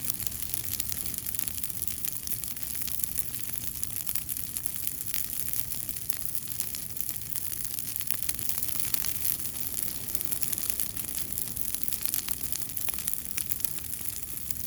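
Fire burning and crackling: a steady hiss with many small irregular crackles.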